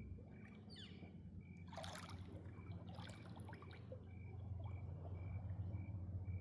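Water trickling and dripping, with a brief louder splash-like rush about two seconds in, over a steady low hum. A faint high chirp repeats about twice a second throughout.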